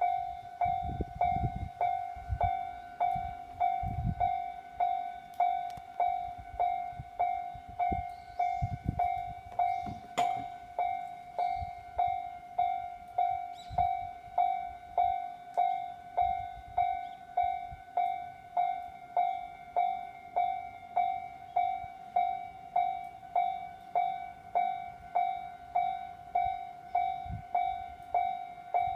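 Railway level-crossing warning bell ringing steadily in even strikes, about three every two seconds: the crossing is closed for an approaching train. Low rumbles come and go underneath during the first ten seconds or so.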